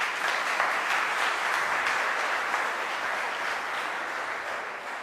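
Audience applause that starts suddenly and slowly dies away toward the end.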